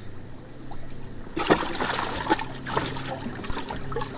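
Water splashing as a bass thrashes in a boat's livewell: a burst of splashing about a second and a half in that lasts a couple of seconds, then smaller splashes.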